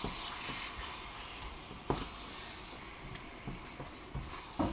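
Sizzling in a hot curry pot just after a tin of chopped tomatoes has gone in, the hiss slowly dying down. A couple of light knocks of a utensil against the pot, about two seconds in and near the end.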